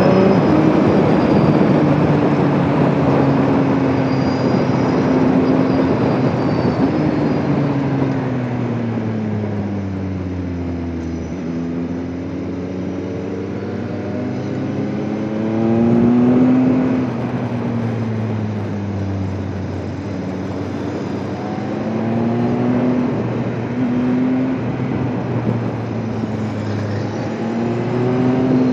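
Sport motorcycle engine under way on the road with wind rushing past, its pitch rising and falling with the throttle. The engine slows and drops to a low pitch around ten seconds in, then pulls back up and revs in several rising surges.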